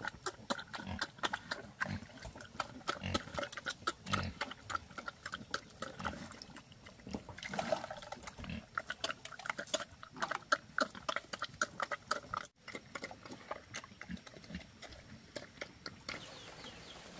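Wild boar and piglets grunting, with low grunts in the first few seconds and higher squealing calls near the middle, over frequent sharp clicks and rustles.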